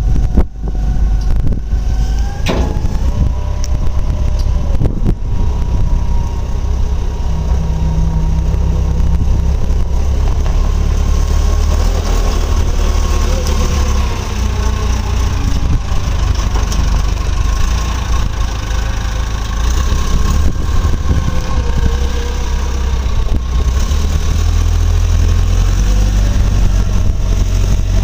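Volvo 4200 wheel loader's diesel engine running as the machine drives and turns, with tones that drift up and down as it works.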